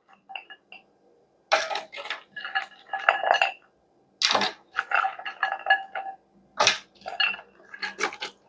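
Kitchen utensils and dishware clinking and scraping in four separate bursts, with a ringing tone, as pieces of smoked turkey are moved into the soup pot.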